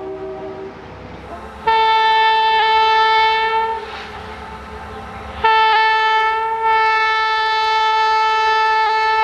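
Nathan K5LA five-chime air horn on an EMD F69PHAC diesel locomotive sounding as the train approaches: a long blast about two seconds in, then a shorter blast and a long one almost run together, over the low rumble of the train.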